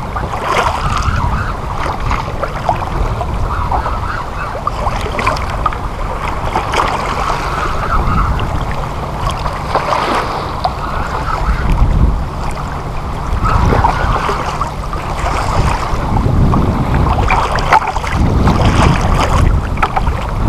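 Wind buffeting the microphone over the lapping and splashing of waves against a plastic kayak hull, a steady rumbling hiss that grows louder in the last few seconds.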